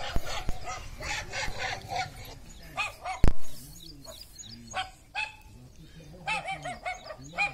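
Recorded dog barking played through a mobile phone's speaker: a run of short, repeated barks with a thin, tinny tone. A single sharp knock sounds about three seconds in.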